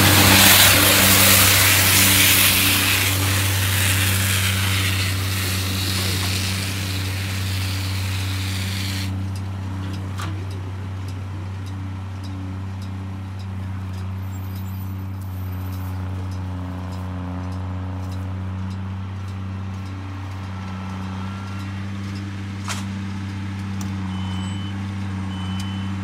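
A tractor's engine runs at a steady working pitch, powering a McHale Fusion 3 round baler-wrapper that is picking up and baling hay. For the first nine seconds or so, loud rushing noise from the baler close by sits over the engine. It stops abruptly, leaving the steady engine hum.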